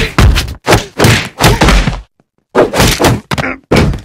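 Cartoon fight sound effects: a rapid run of heavy punch and kick impacts, thuds and whacks, with a brief break about two seconds in.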